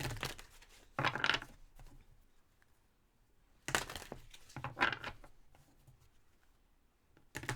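Tarot cards being handled: about five short rustling, slapping bursts at irregular intervals as cards are shuffled or laid down.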